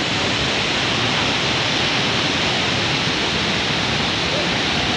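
Waterfall and the white-water rapids below it rushing: a steady, even wash of water noise.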